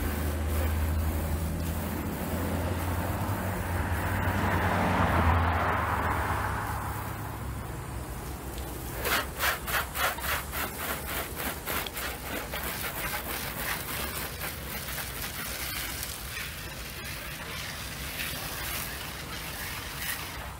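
Garden hose spray nozzle rinsing a car's bodywork: a hiss of water that swells and then stops about six seconds in. A few seconds later comes a rhythmic scuffing, about two strokes a second, that fades.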